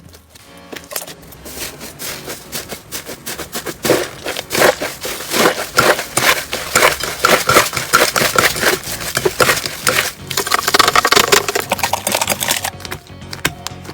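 Slime being squeezed and worked by hand, giving a dense run of crackling and popping clicks that grows busier and louder a few seconds in and eases off near the end.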